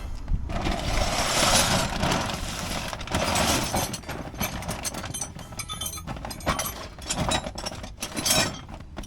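Metal hand tools clinking and clattering as someone rummages through a toolbox, in irregular stretches of rattling with sharp knocks throughout.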